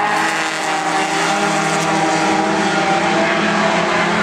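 Several race car engines running at speed together as a pack of cars laps the oval, their steady tones overlapping without a break.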